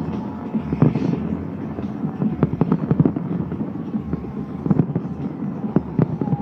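Large aerial fireworks going off in quick, irregular succession: a dense run of sharp bangs and cracks over a continuous low rumble.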